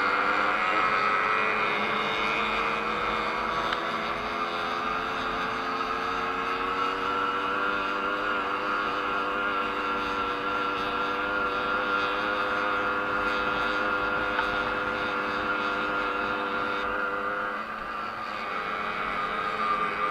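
Small two-stroke race moped engine at high revs, heard from the rider's own bike. Its pitch climbs over the first several seconds and holds steady, then dips about three seconds before the end as the throttle eases, and picks up again.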